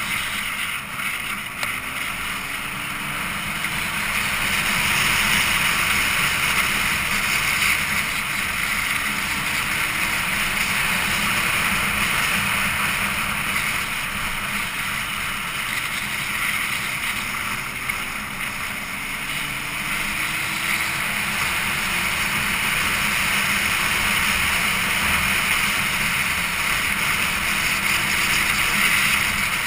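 Wind noise rushing over the microphone of a camera on a moving vehicle, with a faint engine underneath whose pitch rises and falls several times as the revs change.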